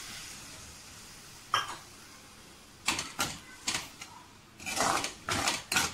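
A fading sizzle from water added to hot masala in a metal kadai. Then a perforated metal skimmer ladle scrapes and knocks against the pan in separate strokes as the masala is stirred, busiest near the end.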